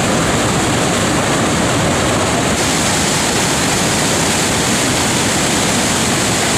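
Niagara Falls: a steady, loud rush of falling water. The hiss gets brighter a little over two and a half seconds in.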